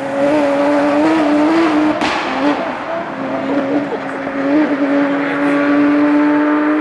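Rally car engine held at high revs under full throttle, its note wavering slightly and dipping briefly around two seconds in, with a sharp crack at the same moment.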